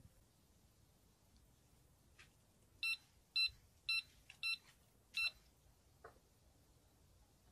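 Electronic carp bite alarm giving five short, irregularly spaced beeps over about two and a half seconds, the sign of line being drawn off as a fish takes the bait.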